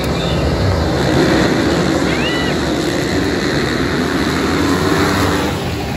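A pack of motocross dirt bikes running together, their engines revving as they come off the start and accelerate down the straight.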